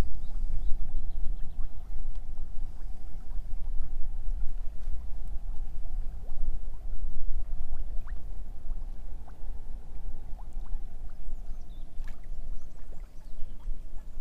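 Wind buffeting the microphone with a steady low rumble, over choppy lake water lapping against a floating pontoon.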